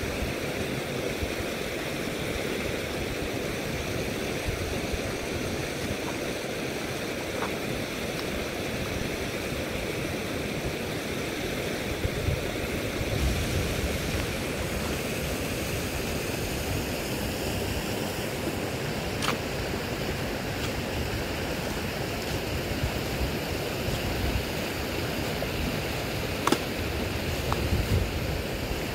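Steady rush of a flowing river or stream, with a few sharp clicks and occasional low rumbles of wind on the microphone.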